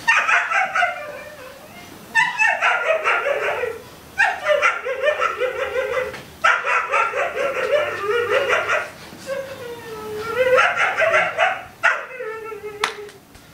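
A man's loud, wordless vocal outbursts: about five long, wavering bursts a second or two each, several of them dropping in pitch at the end.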